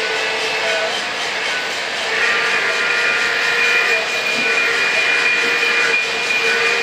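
Lionel O gauge model freight trains running on three-rail track: a steady rolling rumble and clatter of wheels, with motor whine as a steady tone that grows stronger about two seconds in.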